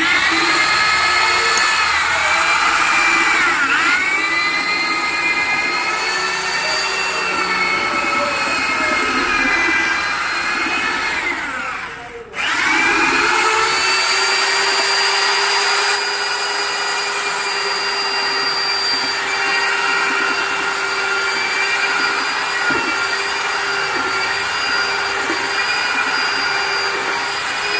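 Electric angle grinder running against plaster in a steady high whine whose pitch sags now and then as it takes load. It cuts out briefly about twelve seconds in and spins straight back up.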